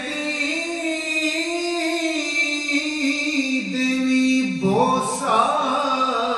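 A man singing a naat solo and unaccompanied into a microphone, in long held, ornamented notes. A new phrase starts about three-quarters of the way through.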